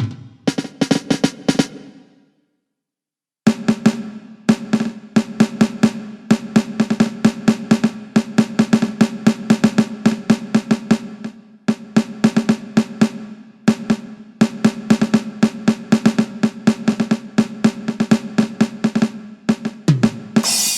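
Millenium MPS-150 electronic drum kit played, heard straight from its sound module: rapid, even snare-like strikes in a continuous roll-like pattern. The sound cuts out to total silence for about a second near the start, and a cymbal crash comes at the very end.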